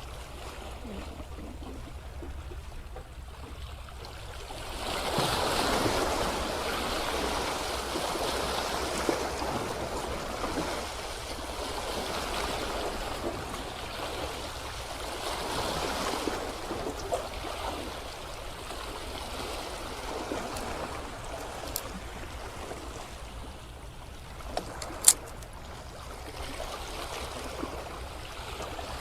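Sea water washing and swirling against shore rocks, a steady wash that grows louder about five seconds in. A sharp tap sounds once near the end.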